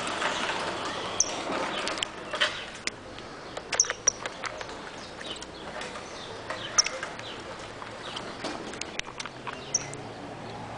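Saffron finch giving short, high chirps every few seconds, with sharp clicks in between.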